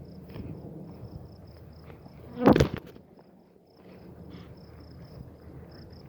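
An insect chirping in a steady high pulse, about five chirps a second. A short loud noise comes about two and a half seconds in.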